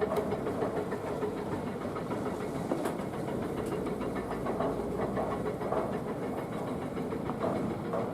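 Excavator with a rock breaker running, its engine and machinery making a steady, rapid clatter.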